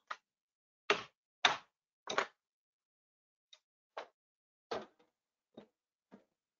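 Irregular short knocks and clicks, about nine of them, with silence between; the first few are the loudest.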